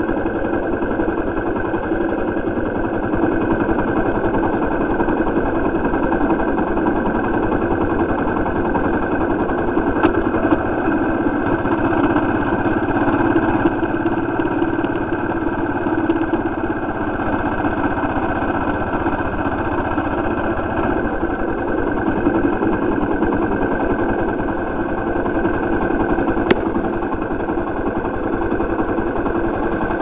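Motorcycle engine running steadily at low speed.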